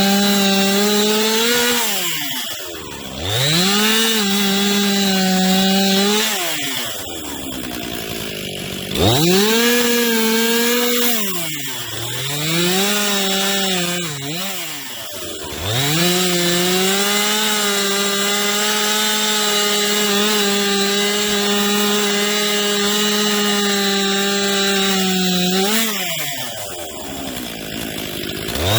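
Two-stroke chainsaw running at full throttle through wood, its revs dropping away and climbing back up about five times as the throttle is eased off and reapplied.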